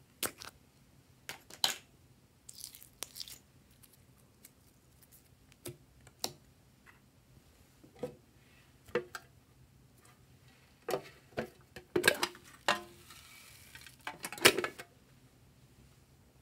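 Scattered clicks, taps and short scrapes from plastic containers being handled while glitter slime and foam beads are added to a glass dish of slime, with a longer rustle near the end.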